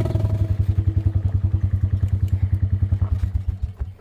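A small vehicle engine idling with an even pulsing beat, then slowing and shutting off near the end.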